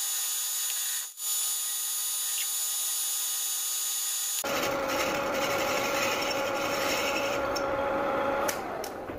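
Metal lathe turning a motorcycle wheel hub while a boring bar cuts the welded aluminium of the bearing housing: a steady high scraping cut. About four and a half seconds in the sound changes abruptly to a fuller, deeper steady running sound of the lathe, with a few clicks just before it cuts off.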